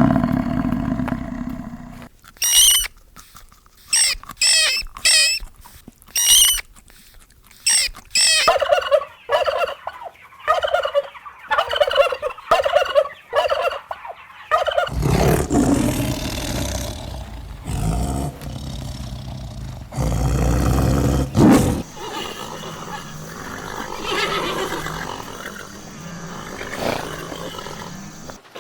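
A run of animal calls that changes in character: short, high, wavering calls repeated several times, then lower calls, then rougher, noisier sounds.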